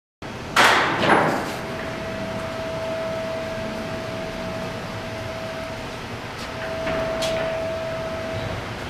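Shop room tone: a steady hum with a thin, high, steady whine. Two loud clunks come about half a second and a second in, and a lighter knock comes near the end.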